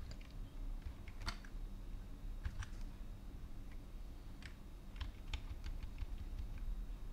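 Computer keyboard keystrokes: scattered, irregular taps while lines of code are edited and deleted, over a low steady hum.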